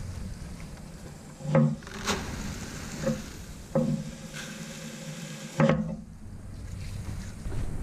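Chicken feed pouring from a gravity wagon's slide-gate chute into a plastic 5-gallon bucket, a grainy hiss, broken by several sharp knocks as the gate and buckets are handled. The pour stops after the last knock, about three-quarters of the way in.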